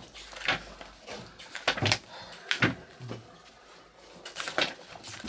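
Irregular series of quick knocks, bumps and rustles from someone hurriedly changing clothes behind an office desk, about ten sharp knocks over the few seconds.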